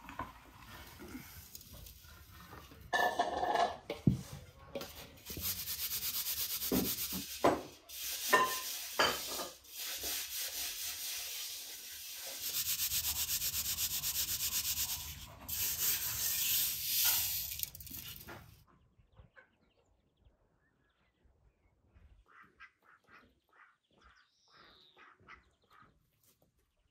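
Ground walnuts being scraped and rubbed with a metal utensil, a loud gritty rubbing in long stretches, after knocks and crunching from a hand-cranked meat grinder at the start. The rubbing cuts off suddenly about two-thirds of the way through, leaving only faint scuffs and ticks.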